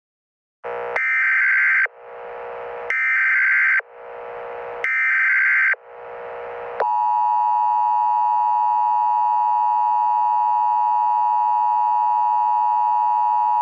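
Emergency Alert System alert header: three harsh, buzzing bursts of the SAME digital data code, each about a second long and a second apart. About seven seconds in, the steady two-tone EAS attention signal begins and holds.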